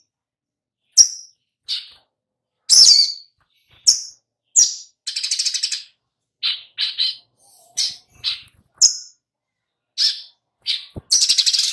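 Olive-backed sunbird calling: a string of short, sharp, high chips and twitters, with a fast rattling trill about five seconds in and another one starting near the end.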